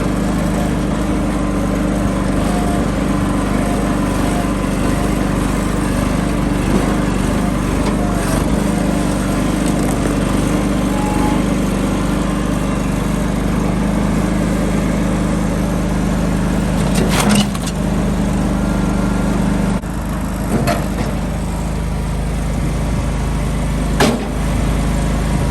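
An engine running steadily with an even drone, with a few sharp knocks in the second half.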